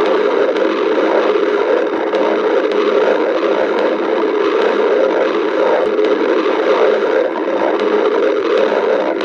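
Cartoon stomach-growl sound effect: a loud, continuous rumble that runs without a break.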